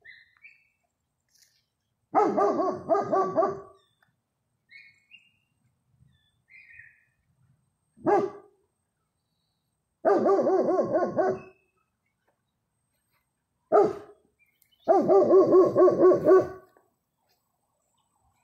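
Dogs barking back and forth, a German Shepherd and a neighbour's dog: strings of quick, pitched barks about a second and a half long, around two, ten and fifteen seconds in, with single barks between.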